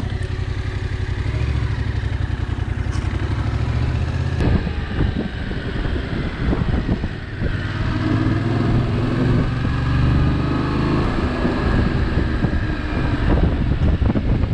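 Motorcycle engine running on the road, a steady drone, joined about four seconds in by a gusty rush of wind on the microphone.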